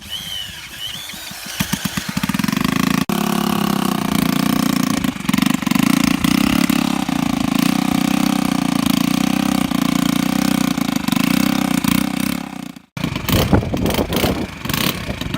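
A 50cc four-stroke 139QMB scooter engine being spun over with an electric drill in place of its broken kickstarter: a brief whine, then firing pulses that quicken until the engine catches about two seconds in and runs steadily. Near the end the sound cuts out abruptly and comes back as louder, irregular engine noise.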